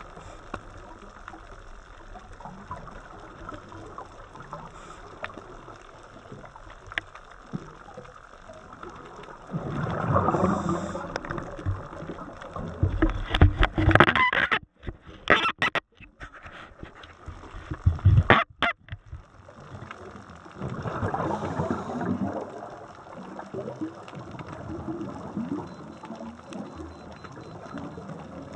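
Underwater, a scuba diver's exhaled bubbles from the regulator gurgling and rumbling close to the camera in several loud bursts through the middle, over a steady underwater hiss.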